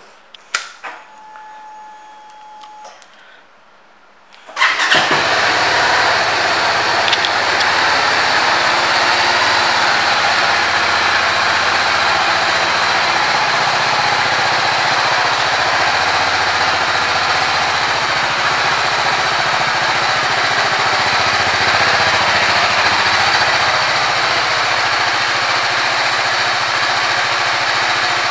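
2020 BMW G 310 R's 313 cc single-cylinder engine starting about four and a half seconds in, then idling steadily. Before the start there are faint clicks and a brief steady tone as the ignition is switched on.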